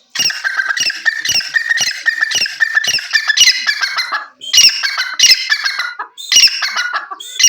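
Grey francolin (teetar) calling: loud, shrill notes repeated about twice a second for roughly four seconds, then two more phrases after short pauses.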